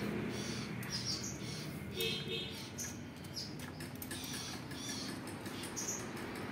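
Small birds chirping repeatedly in short high calls, with a few light clicks and knocks from the metal and plastic parts of a copier fuser unit being handled.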